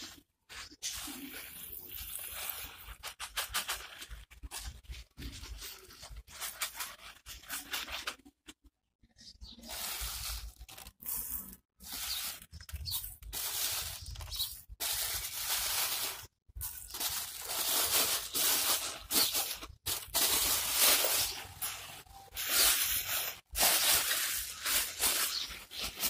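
Dry bird seed mix of millet and sunflower seeds pouring into a bowl and being stirred by hand, with plastic rustling: a run of rustling and pattering noise that stops and starts in short bursts.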